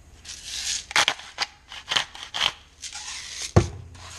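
Salt shaker and pepper grinder being worked over raw chicken breasts: a run of short, sharp rasping strokes and clicks, then a single dull thump about three and a half seconds in.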